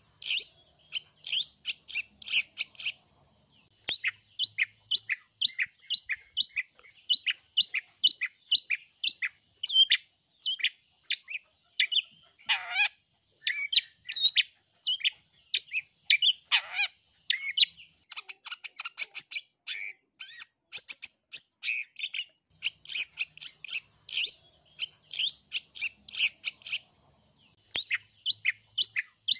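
Long-tailed shrike (cendet) singing a fast, unbroken chatter of short high notes, several a second. Two longer calls sweep sharply downward about halfway through.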